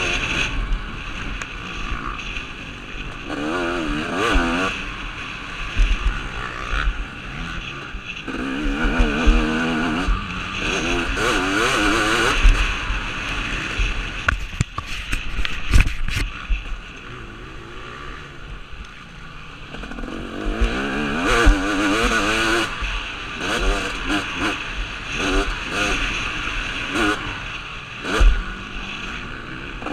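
KTM 250 SX two-stroke motocross bike ridden hard, heard from the rider's helmet camera. The engine revs rise and fall over and over as the throttle is worked, with a few sharp thumps in the middle and near the end.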